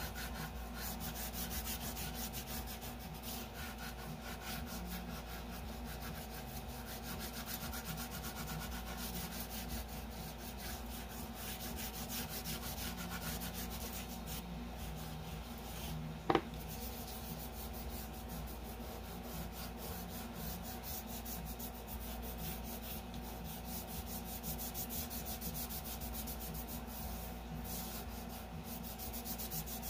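Chalk pastel stick scratching and rubbing across paper in rapid back-and-forth strokes, laying down a base coat of colour. One sharp click about halfway through.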